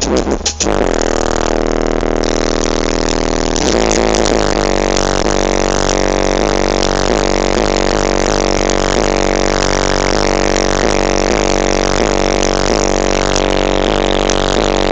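Car audio system playing music at very high volume, heavy and distorted, with sustained tones over a deep steady bass and a regular beat.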